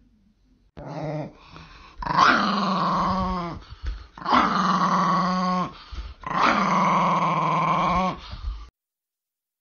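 Small dog growling at a vacuum cleaner wand in three long, drawn-out bouts, each bending in pitch as it ends, after a fainter growl about a second in.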